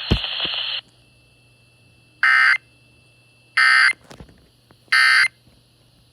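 Emergency Alert System end-of-message signal: three short, loud, identical bursts of warbling data tones, evenly spaced about a second and a half apart, marking the end of the tornado warning broadcast. Before them, a hiss from the broadcast cuts off with a thump under a second in.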